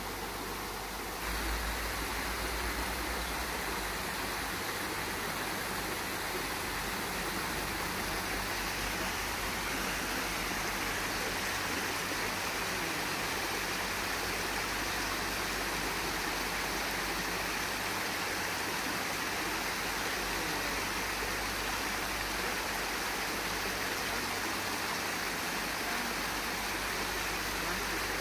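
Water pouring over a low stone weir in a shallow stream: a steady, even rushing that gets a little louder about a second in.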